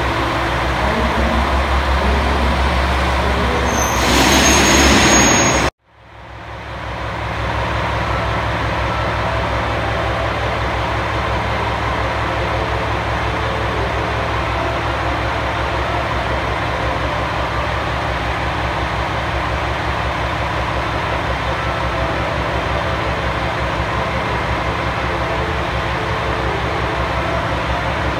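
KiHa 120 diesel railcar idling at the platform, a steady low engine hum. About four seconds in a louder hiss rises over it, then the sound cuts off abruptly. A steady low running hum comes back over the next couple of seconds and continues.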